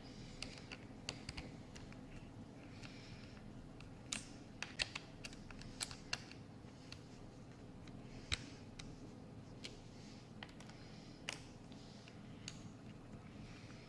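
Faint keys being pressed on a laptop keyboard: irregular single clicks and short runs, over a low steady hum.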